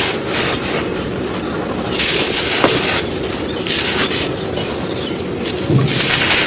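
Dry black sand shapes crumbling: a continuous gritty crunch and crackle, swelling louder about two seconds in and again near the end.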